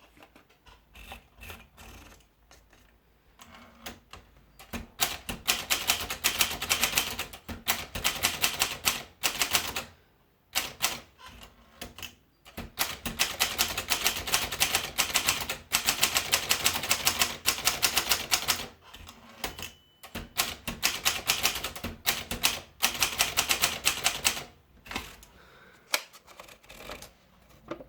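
Underwood 19 typewriter being typed on: fast runs of key strikes in several spells with short pauses between them, starting a few seconds in and thinning to a few scattered strikes near the end.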